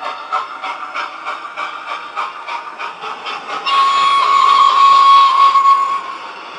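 Model steam locomotive's DCC sound decoder playing an even exhaust chuff, about four or five beats a second. About halfway through, a steady whistle blast with hiss comes in, the loudest sound, lasting a little over two seconds.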